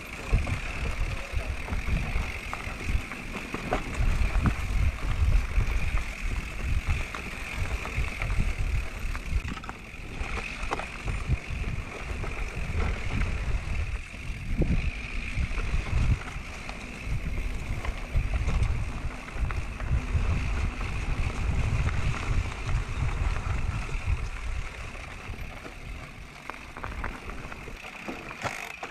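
Wind buffeting the microphone over the rumble of an electric mountain bike riding a rough trail, with scattered knocks and rattles from the bike. The rumble comes and goes and eases a little near the end.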